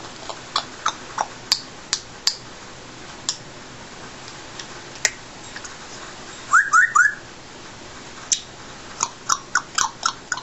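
Congo African grey parrot vocalising: a string of short sharp clicks and chirps, then three quick rising whistles about six and a half seconds in, and a quick run of short chirps near the end.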